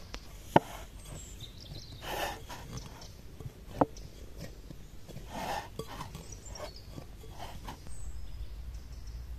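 Hands kneading soft pizza dough in a glass bowl: soft squelching rustles as the dough is pushed and folded. Twice there is a sharp knock, about half a second in and again near four seconds.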